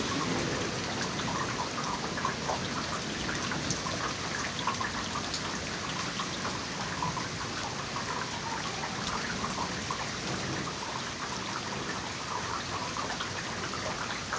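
Rain falling steadily during a thunderstorm, with many scattered drops ticking close by.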